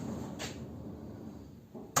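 A few short knocks and clicks over a low background rumble, the sharpest and loudest knock coming just before the end.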